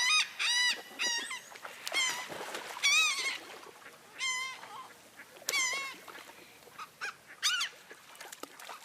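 A bird calling repeatedly: short, loud, rising-and-falling calls, some on their own and some in quick runs, at irregular intervals.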